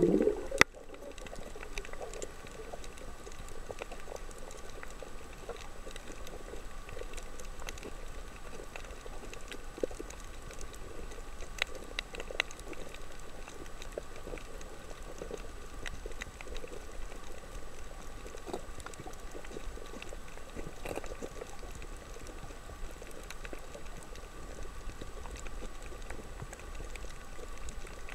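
Underwater coral-reef ambience: a steady crackle with scattered sharp clicks. A single sharp knock comes about half a second in.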